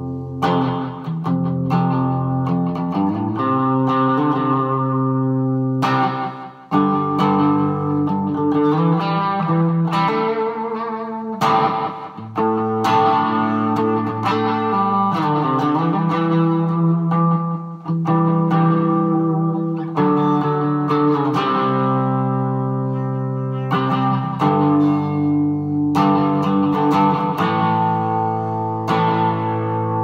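Electric guitar with a custom-rewound Kay Zippo pickup played through an amplifier: chords strummed and let ring, with fresh strums every few seconds.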